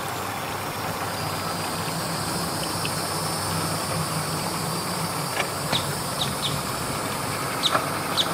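An engine idling with a steady low hum. From about five seconds in, several short, high, quickly falling chirps sound over it.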